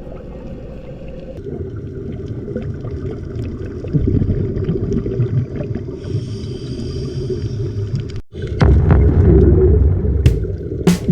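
Muffled underwater rumble and water noise through an underwater camera's housing, with the bubbling of scuba divers' exhaled air. The sound drops out for an instant about eight seconds in and comes back louder.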